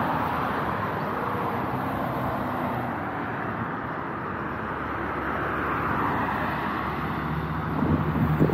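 Road traffic on a main road: the engine and tyre noise of passing cars, a steady hum that swells and eases as vehicles go by.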